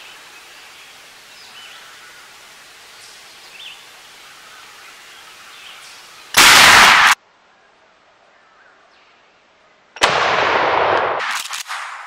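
Two loud shotgun blasts about four seconds apart; the first cuts off abruptly, the second trails away in echo over a second or two.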